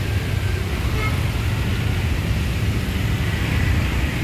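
Steady rumble of city road traffic, cars running past without a break.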